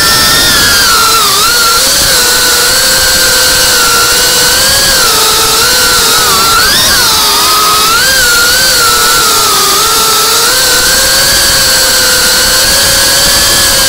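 FPV racing quadcopter's brushless motors and propellers whining loudly, the pitch wavering up and down as the throttle changes through turns.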